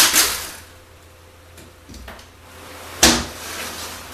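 Two short bursts from a compressed-air tool working at the tail of a 4L80E transmission case, one right at the start and a second, sharper one about three seconds in.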